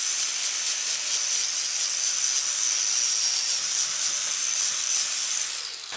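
A 4.5-inch angle grinder with an 80-grit zirconia flap disc grinding a flux-core weld on thin galvanized steel tubing: a steady hiss of abrasive on metal over a thin high motor whine. Near the end the grinder is switched off and winds down.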